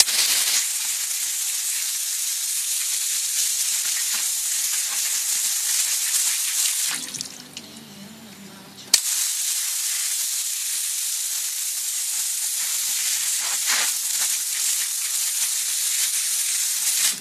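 Water spray from a hose nozzle hissing steadily against an alloy wheel. It stops about seven seconds in, then starts again after a couple of seconds with a sharp click.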